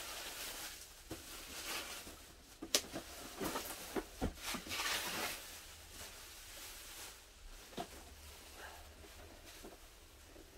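Bubble-wrap and plastic packaging rustling and crinkling as it is pulled off a boxed toy, with a few sharp clicks, the loudest about three seconds in.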